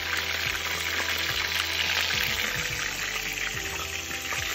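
Battered cod deep-frying in hot oil in a wok: a steady crackling sizzle, with background music and a low hum underneath.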